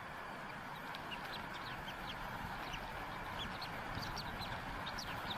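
Newly hatched bald eagle chick peeping: quick, thin, high chips, several a second, over a steady rushing background.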